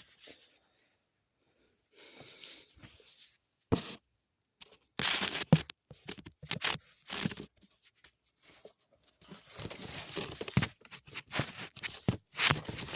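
Irregular tearing, crinkling and rustling from hands working on the furnace's blower motor, broken by a few sharp knocks and clatters, the loudest about five to six seconds in.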